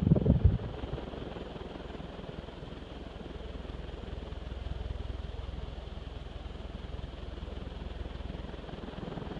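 Kenroy (Union) ceiling fan running on high: a steady rush of moving air over a low motor hum, from a fan that has not been oiled and runs fairly well. A brief low rumble in the first half second.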